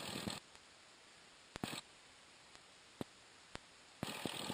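Cessna 172 engine noise at taxi, heard through the cabin intercom, cuts off abruptly about half a second in as the intercom gate closes. What follows is near silence with three brief sharp clicks. The engine noise cuts back in near the end.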